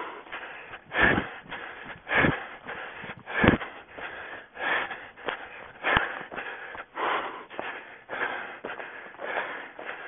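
A runner breathing hard while running through forest undergrowth, the breaths swelling about once a second, with footfalls and vegetation brushing past. Several sharper thuds stand out, the loudest about three and a half seconds in.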